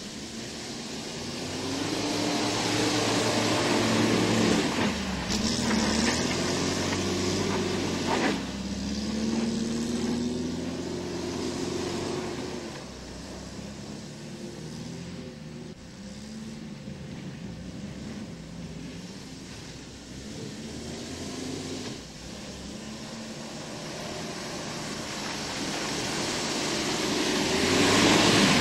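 Opel Manta driving in snow, its engine revving up and down over and over. Near the end it gets louder as the car comes close, with a rushing hiss of tyres in the snow.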